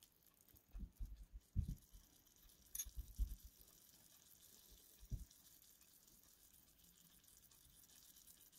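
Faint steady hiss with a few soft low thumps: a cluster about a second in, another around three seconds, and one more near five seconds.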